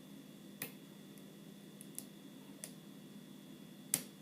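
Small metal clicks of a lock pick and tension wrench working the pins of a Eurospec MP5 euro cylinder lock during single-pin picking: four sharp clicks spread out over a few seconds, the loudest near the end, over a faint steady hum.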